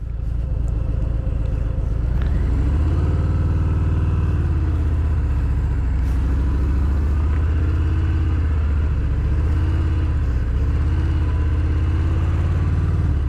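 Harley-Davidson Milwaukee-Eight 114 V-twin running through Rinehart 4.5-inch slip-on mufflers under way, a steady, throaty low rumble whose pitch slowly rises and falls with the throttle.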